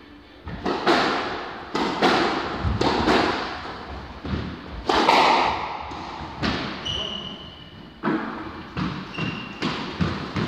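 Squash rally: the rubber ball is struck by rackets and smacks against the court walls again and again, each hit echoing in the enclosed court. Two short high squeaks come in the second half of the rally, likely sneakers on the wooden floor.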